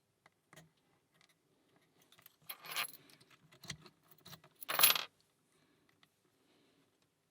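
Small metal clicks of lock picks working a padlock, then two louder metallic clatters with a bright ring, about two and a half and five seconds in.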